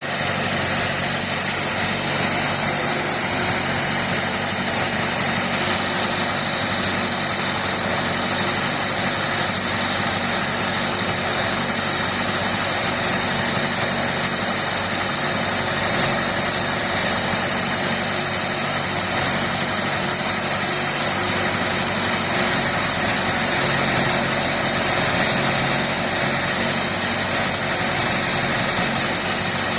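ZMZ-402 inline-four petrol engine running steadily after a rebuild, with a knock in it whose cause the owner does not know.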